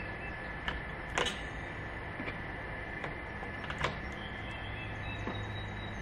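AA batteries being pressed into the battery compartment of an electronic deadbolt's interior unit: a handful of light, irregular clicks and taps of battery against spring contacts and plastic housing, over a steady low hum.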